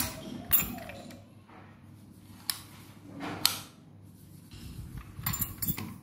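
A steel godown door lock and its keys being handled: scattered metallic clicks and clanks as the lock body, its bolts and the dangling keys are moved, with a quick cluster of clicks near the end.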